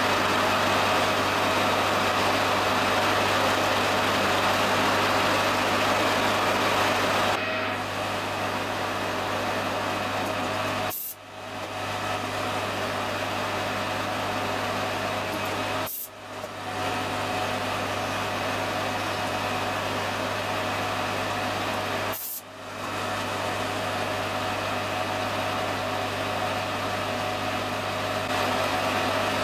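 Small metal lathe running steadily with a low hum while a 1.4 mm drill bit is fed by hand into the spinning spray bar, over a constant hiss of heavy rain on an uninsulated shed roof. The sound drops out briefly three times, each with a click.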